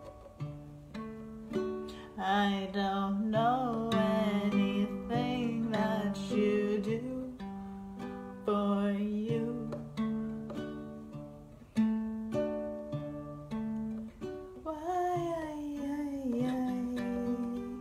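Ukulele played as a song accompaniment. A voice sings without clear words, rising and falling in pitch, from about two seconds in to about seven, and again near the end.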